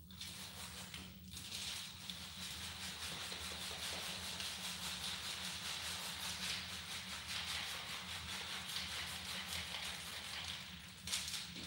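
Steady hiss of slip solution sprayed from a spray bottle onto a minivan windshield, mixed with the crinkle of a large sheet of clear window-tint film being handled and laid on the wet glass. The hiss drops out briefly about a second in and ends with a short louder burst near the end.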